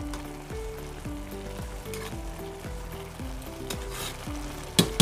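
A slotted metal spoon gently stirring moist vegetable pulao rice in an aluminium pot over the heat, with a soft sizzle from the simmering pot. Near the end the spoon strikes the pot once with a sharp clink.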